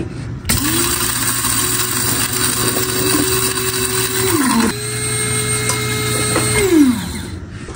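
Electric spice grinder grinding dry-roasted whole spices (black pepper, cumin, coriander seed, dried red chillies, fennel) into masala. It runs twice: a motor whine of about four seconds that winds down, then a slightly higher second run of about two seconds that also winds down.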